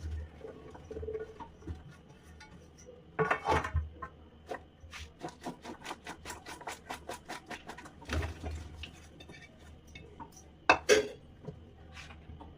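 Kitchen utensils and dishes clinking, knocking and scraping. There is a run of quick, even taps in the middle and a sharp knock near the end.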